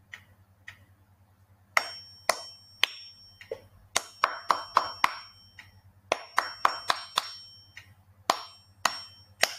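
Hand claps beating out a short rhythm exercise: single claps about half a second apart broken by quicker runs of four, in two phrases, with faint high ringing tones under some of them.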